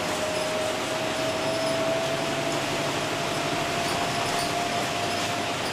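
Bus cabin noise in a heavy rainstorm: a steady rush of rain and road noise, with a thin whine slowly rising in pitch that stops near the end.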